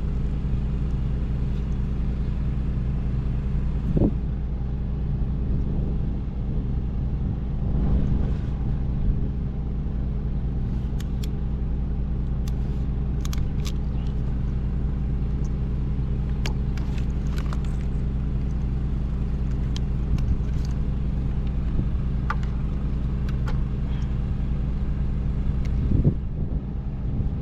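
A steady low mechanical drone, like an engine running, with scattered small clicks and a few soft knocks from wire connectors and parts being handled.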